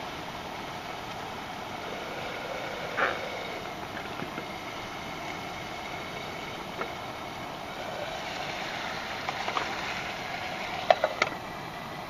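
Wood campfire burning with a steady hiss and scattered crackles and pops, the loudest two close together near the end.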